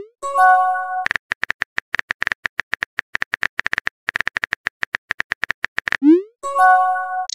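Rapid clicks of a phone keyboard tap sound effect as text is typed. At the start and again about six seconds in, a short rising swoop is followed by a brief chime chord: the message-sent sound.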